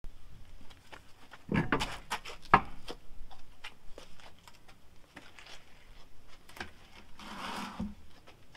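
Knocks and clicks from an all-terrain tire and steel wheel being worked off the hub, the loudest knock about two and a half seconds in. Near the end comes a scraping rustle ending in a thud as the tire is laid down on concrete.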